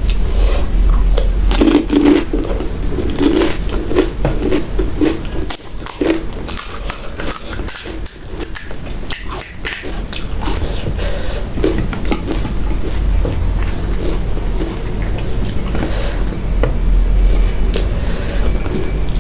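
Close-up mouth sounds of someone eating pani puri: crisp puri shells crunching, then chewing, with many short crackling clicks. A steady low hum runs underneath.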